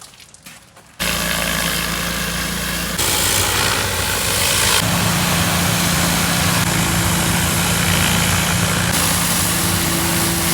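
Small engine running steadily with a loud hiss over it. It starts suddenly about a second in, changes a little twice and cuts off abruptly at the end.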